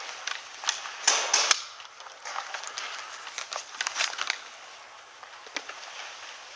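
Scattered sharp clicks and pops of airsoft fire in a concrete room, with a louder hissing burst about a second in.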